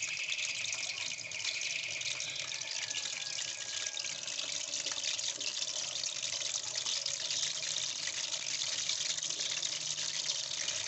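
Raw chicken pieces frying in hot oil in an aluminium wok: a steady, dense sizzle with fine crackling.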